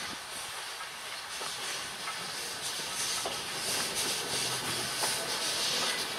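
Steam locomotive moving slowly, its cylinders hissing steam, the hiss growing louder about two and a half seconds in, with a few faint clanks.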